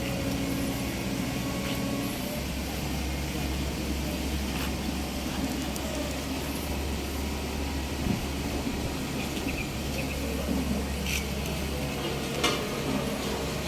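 Vehicle engine running steadily at idle under a constant hiss, with a few brief sharp knocks.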